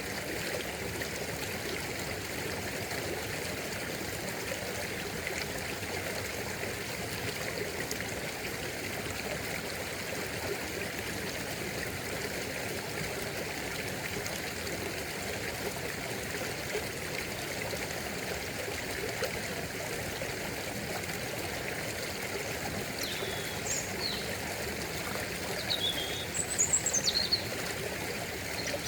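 Stream water running steadily. Near the end a bird chirps a few times, short high notes.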